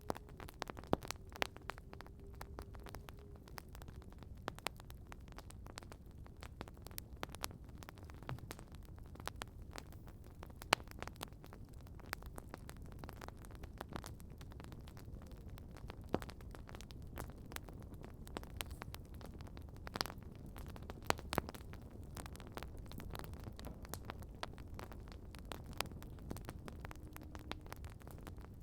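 Wood campfire crackling: a low steady rush of burning with constant small snaps and pops, and a few louder sharp pops scattered through. A faint thin whistling tone is heard for the first few seconds and again near the end.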